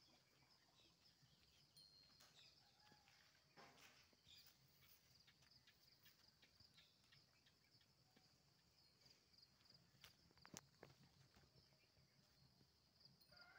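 Near silence: a faint, steady, high insect chirring, with a few soft scattered clicks.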